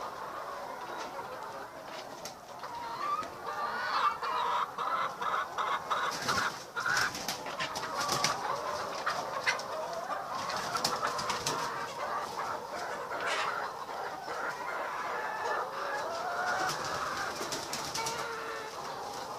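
A flock of chickens clucking and calling together. From about four seconds in, many sharp clicks and knocks sound among the calls.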